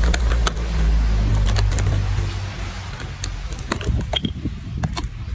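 A macaque biting and handling a plastic drink bottle: sharp crinkles and clicks of plastic, thicker in the second half. Under them is a low steady hum that fades after about two and a half seconds.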